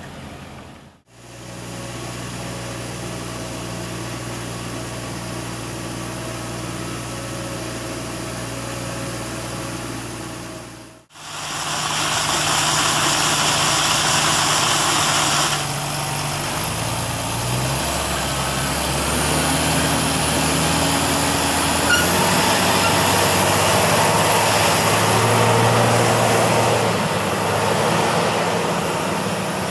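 Deutz-Fahr Agrotron tractor's diesel engine running under load as it pulls a slurry tanker through soft mud, its pitch shifting as it works. The sound drops out briefly about a second in and again about eleven seconds in, then comes back louder, with a rushing noise over it for a few seconds.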